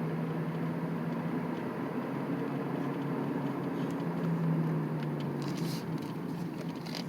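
Engine and road noise inside a 2007 Chevy Impala's cabin while driving: a steady low drone that swells slightly midway, with a few faint brief rattles in the second half.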